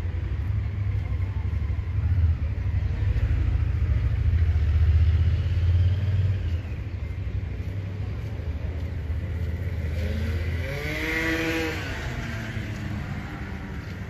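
Wind buffeting the phone's microphone, a gusty rumble that is strongest in the first half and eases off after about six seconds. About eleven seconds in, a single short high call rises and falls.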